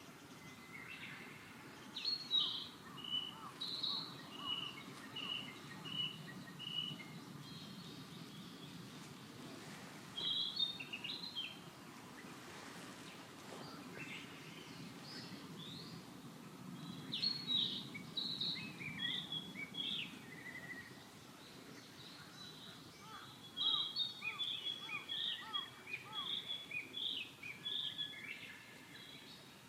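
Small birds calling: short high chirps in clusters, some as evenly repeated series of notes, over a steady low background noise.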